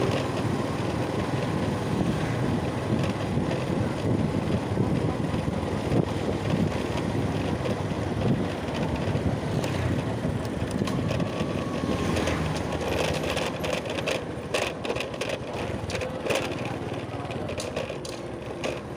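A small engine running steadily, with scattered clicks and rattles in the second half.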